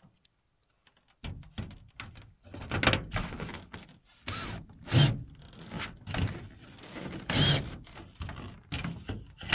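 Irregular thumps, knocks and scraping on loose roof-shade panels as someone moves about on them and handles the sheeting, with a few louder bangs about three, five and seven seconds in.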